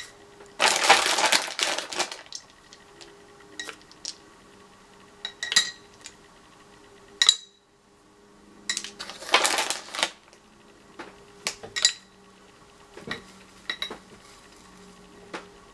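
Small hard-shelled bubblegum eggs dropped into a glass jar, clicking and clinking against the glass and each other. There are two bursts of crinkly plastic rustling, one about a second in and one a little past the middle.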